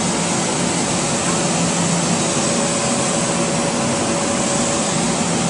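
Metro-North Bombardier M7A electric train standing at the platform, its onboard blowers and equipment running with a steady rushing hum and a faint held tone.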